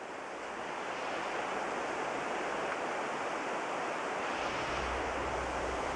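Steady rushing noise that grows slightly louder in the first second, joined by a low hum about four and a half seconds in.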